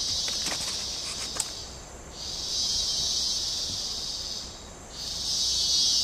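An insect calling with a high-pitched steady buzz in long phrases of about two and a half seconds, broken by a short pause twice.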